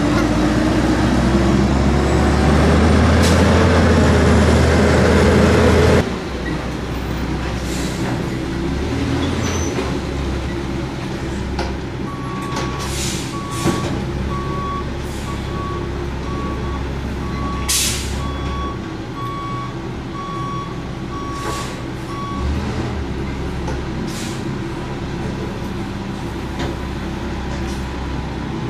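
Front-loader garbage truck's diesel engine running loud as it drives, then quieter. Over about ten seconds in the middle, the truck's reversing alarm beeps about once a second, with short hisses of released air and a few clanks.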